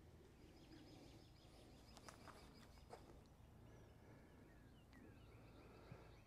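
Near silence: faint outdoor ambience with distant birds chirping now and then, and a few soft clicks about two to three seconds in.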